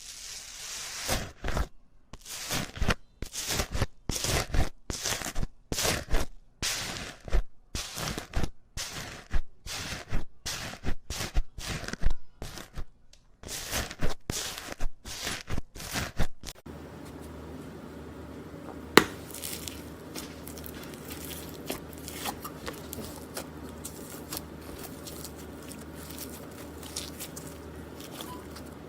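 Slime being squeezed, stretched and poked, making crackling, crunching and tearing sounds in quick, uneven bursts. About 16 seconds in the sound changes abruptly to fainter, scattered crackles over a steady low background noise, with one sharp click.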